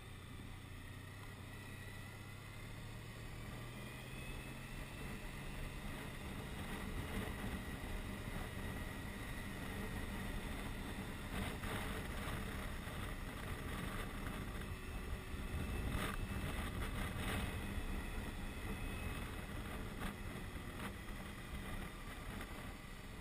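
Touring motorcycle riding at speed, heard from a helmet-mounted camera: a steady engine hum at first, then wind rushing over the microphone grows louder after several seconds.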